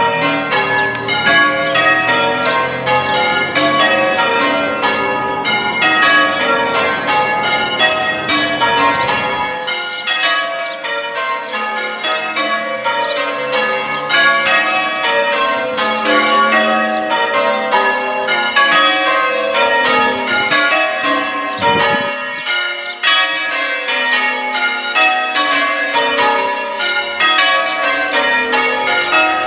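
A ring of six church bells rung in changes, struck in a steady, continuous pattern.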